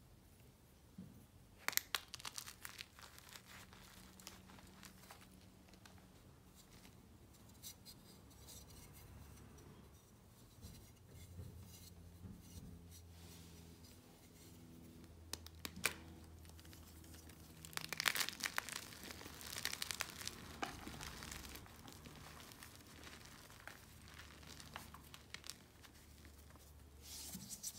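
Blocks of carved gym chalk crushed and crumbled by hand over a box of broken chalk chunks: dry, crackly crunches, loudest about 2 s in, around 16 s and from 18 to 21 s, with quieter rustling of chalk pieces between.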